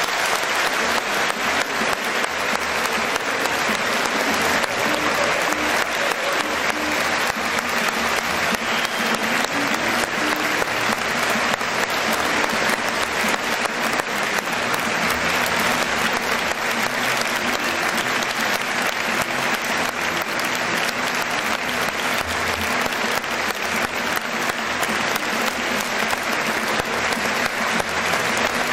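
Large audience applauding, a steady, dense clapping that holds at an even level throughout.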